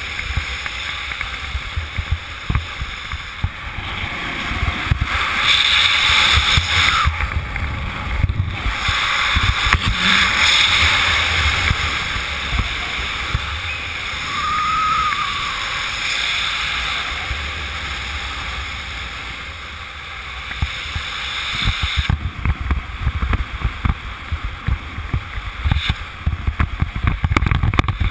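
Air rushing over the camera microphone during a speed-wing flight: a steady rushing noise with low, gusty buffeting that swells and eases, turning choppier near the end.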